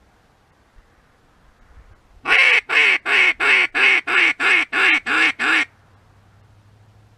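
A hand-blown duck call sounded in a quick run of eleven loud quacks, about three a second, starting about two seconds in.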